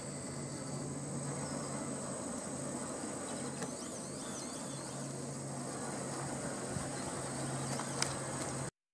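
Outdoor ambience: a steady high-pitched insect drone over a low steady hum, with a few faint high chirps a few seconds in. The sound drops out abruptly near the end.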